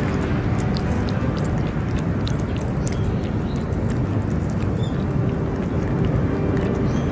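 A cat chewing food from a metal bowl, with many small scattered clicks of chewing and biting, over a steady low rumbling noise.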